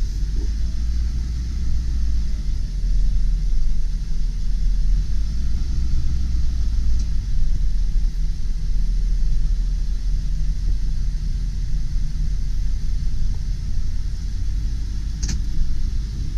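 1999 Ford E-450 box truck's 7.3L Power Stroke turbo-diesel V8 running with a steady low rumble as the truck is driven in reverse. A single sharp click comes about fifteen seconds in.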